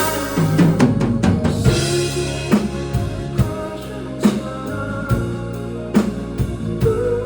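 Live rock band playing an instrumental passage between sung lines: a quick drum fill on the snare and toms opens it, then the full band carries on with drums, bass and sustained guitar or keyboard chords, with heavy accented hits every second or two.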